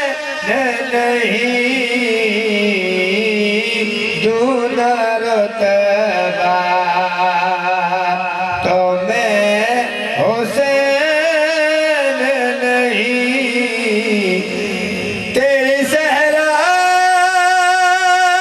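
A man singing a qasida solo in Punjabi-Urdu, in long, drawn-out melodic notes with a wavering vibrato, pausing briefly twice for breath.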